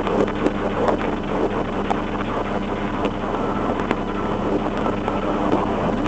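Steady running noise of a police patrol car, a constant low hum with a few faint clicks scattered through it.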